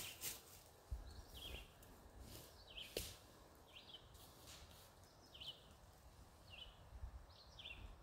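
Near silence, with faint short bird chirps repeating about once a second.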